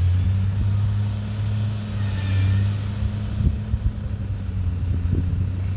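Compact crawler excavator's diesel engine idling with a steady low drone, with a few short knocks in the second half as the operator climbs into the cab.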